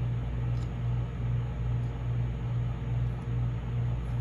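A steady low hum of room noise, with a faint tick or two of small objects being handled.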